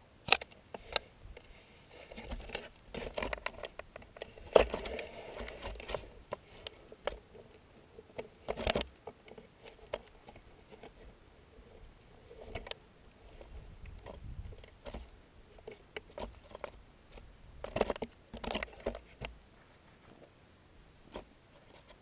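Irregular muffled knocks, taps and scraping against an action camera's housing as it is handled and turned on the helmet. A few louder bumps stand out, and a faint low rumble comes and goes.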